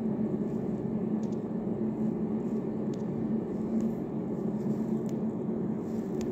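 Steady low background hum with a few faint, short ticks scattered through it.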